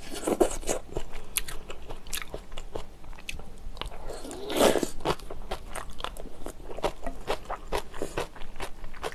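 A person eating close to the microphone: crunchy bites and wet chewing of spicy jjamppong noodles and vegetables, with many small mouth clicks and a louder mouthful about four and a half seconds in.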